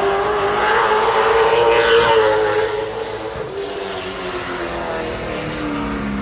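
Stock race car's engine running hard on a warm-up lap as it passes the grandstand. The engine note climbs and is loudest about two seconds in, then drops in pitch and fades as the car moves away into the turn.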